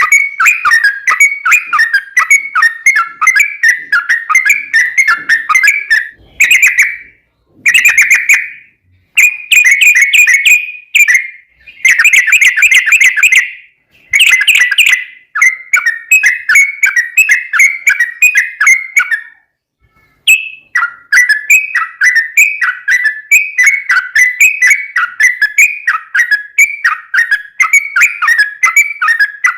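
Yellow-vented bulbul (trucukan) singing long, rapid runs of short, bubbling whistled notes, with a few brief pauses between bouts.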